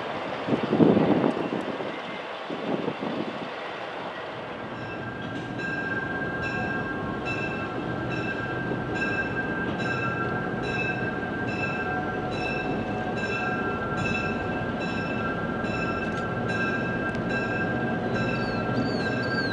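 Locomotive bell ringing at a steady, even beat over the low rumble of a diesel passenger locomotive's engines, which is probably ACL E3 No. 501 approaching. The bell and engine sounds follow a few seconds of rushing noise with one loud burst.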